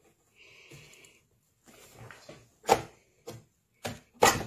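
Hands rubbing and pressing on the fabric cover of a soft ballistic panel: a short faint hiss, then four quick rubs or scrapes, the last the loudest.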